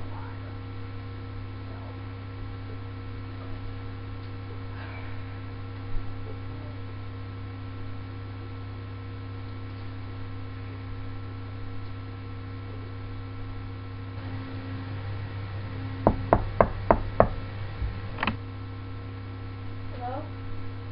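A quick run of five sharp knocks on a hard surface, then one more about a second later, over a steady electrical hum; a single thump comes earlier.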